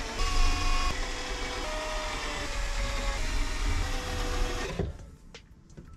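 Cordless drill running as it bores pilot holes through softwood bed slats, its whine shifting pitch as the trigger and load change. It stops about five seconds in, leaving a few light clicks.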